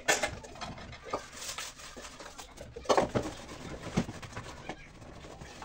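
Dishes and pans clattering in a kitchen sink during washing up: several sharp knocks, the loudest just after the start and about three and four seconds in.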